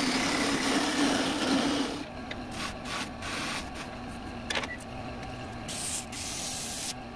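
Turning tool cutting a small wooden workpiece spinning on a wood lathe. For about the first two seconds there is a continuous scraping hiss over a steady low hum. After that come shorter cuts with brief pauses between them, and a sharp click about halfway through.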